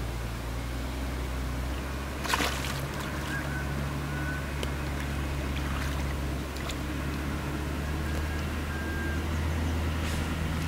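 Splashing in shallow lake water as a large hooked fish is handled at the shoreline, with one sharp splash about two seconds in and a few smaller ones later, over a steady low hum.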